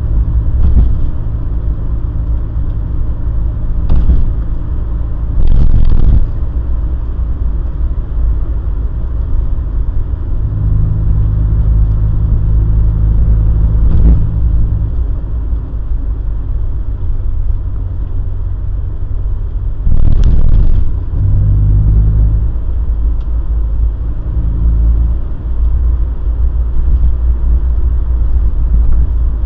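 Morris Minor Traveller on the move, heard from inside the car: a steady low rumble of engine and road noise, with the engine note changing pitch a few times. Several brief loud knocks cut through it, the loudest about six and twenty seconds in.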